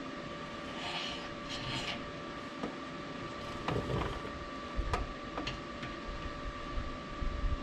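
MIG welder laying two short crackling tack welds on a steel suspension bracket about a second in, then a few sharp metallic clicks and knocks and low thuds as the work is handled, over a steady hum.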